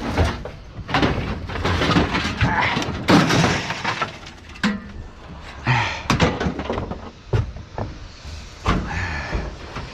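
Scrap metal being thrown off a truck onto a scrap pile: a run of repeated metal crashes and clanging impacts.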